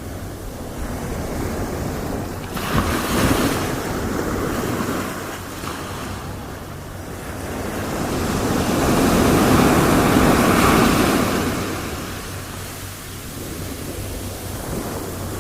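Ocean waves breaking and washing up, a steady surf hiss that swells and recedes. One wave crashes sharply about two and a half seconds in, and a bigger one builds and breaks near the middle. Wind rumbles on the microphone.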